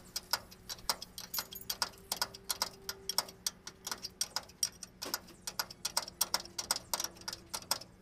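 Socket ratchet clicking quickly in uneven runs as a bolt is turned, with a short break about five seconds in. A faint steady hum lies underneath.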